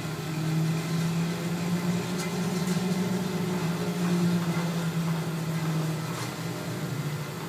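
T-Jaw 600 vertical bandsaw running: a steady motor-and-blade hum, a little louder through the middle, with a few faint ticks.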